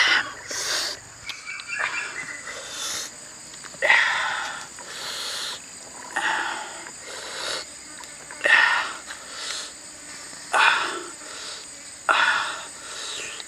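A wooden spoon scraping and scooping wet chilli sauce in a stone mortar, a short scrape every second or two, over a steady high drone of insects.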